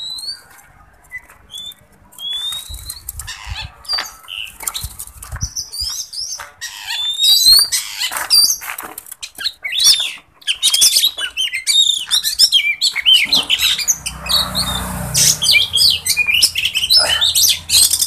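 Caged oriental magpie-robins (kacer) calling and singing in short rising whistles and chirps. The calls are sparse at first and grow into a dense, overlapping chorus from about halfway in, with scattered clicks among them.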